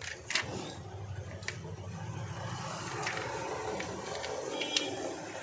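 Rustling and scraping of hands handling a cracked smartphone and a clear plastic sheet on a tabletop, with several sharp clicks and taps of a thin metal tool and the phone.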